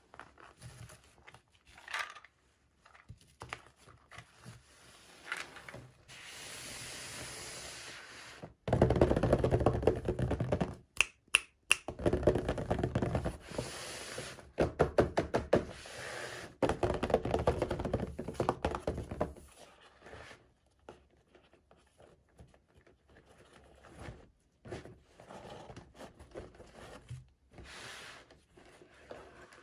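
Hands opening and handling toy packaging: rustling and crinkling with small taps and knocks, loudest in a long stretch of rustling near the middle.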